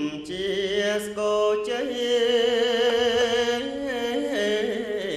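Buddhist chanting: a voice chanting melodically, with long held notes that waver in pitch.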